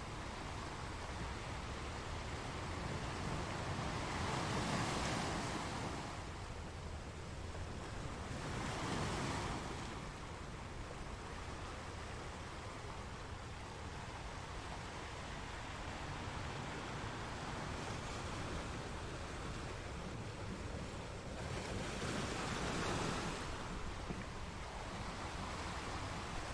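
Sea waves breaking on a rocky shore: a continuous wash of surf that swells into louder breaks three times, about five seconds in, about nine seconds in, and again near the end.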